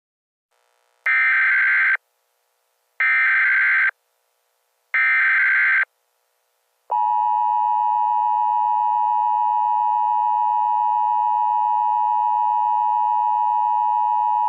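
Emergency Alert System SAME header: three short bursts of buzzing data tones about two seconds apart. They are followed by the EAS attention signal, a steady two-tone beep held for about eight seconds, which marks an emergency alert message about to be read.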